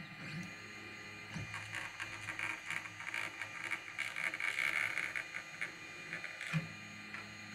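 Desktop CNC router running, its motors making a mechanical buzzing chatter with many short clicks from about a second and a half in until near the end, loudest in the middle.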